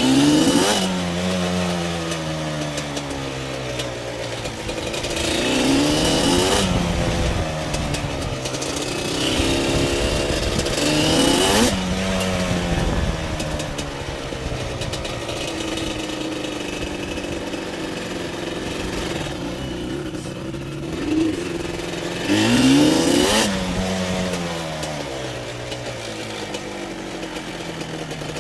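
An engine revving up and dropping back again, about four times, its pitch climbing quickly and then falling slowly between revs.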